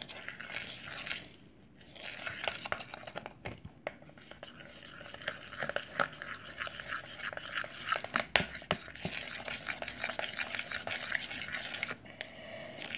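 Watery salt dough of flour, salt and water being stirred in a bowl: continual scraping and small clicks against the bowl, with a brief lull about a second and a half in.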